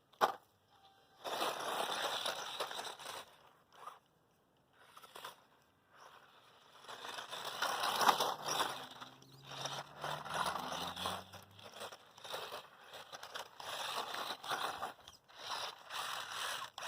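Small Losi Mini-T 2.0 RC truck's tires spinning and scraping in loose dirt, in bursts of one to three seconds with short pauses, as the hung-up truck struggles to get free.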